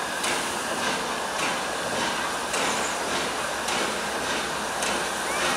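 Train rolling along the track: a steady rumbling noise with a sharp click about once a second.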